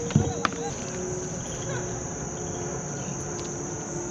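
Steady high-pitched insect chorus, with a splash just after the start as a hooked bass thrashes at the surface beside the kayak.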